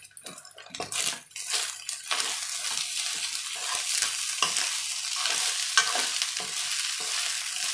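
Fried rice with sour pork sizzling in a white-coated wok on a gas burner while it is stirred and tossed with a metal spoon, the spoon scraping through the rice in repeated strokes. The sizzle comes up about a second in and then holds steady.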